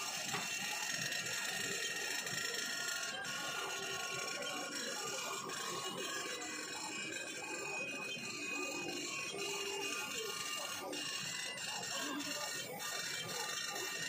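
CNC router spindle cutting a jali pattern into MDF board, giving a steady whine, with background music over it.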